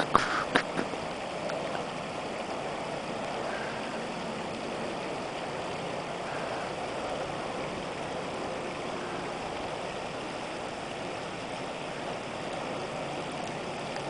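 Shallow, partly iced-over creek flowing, a steady rushing gurgle. A few sharp knocks come in the first second.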